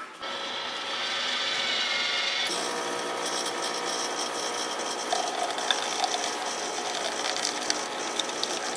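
Automatic coffee vending machine running as it dispenses a drink into a paper cup: a steady mechanical whirr that changes and grows busier about two and a half seconds in, with scattered small clicks.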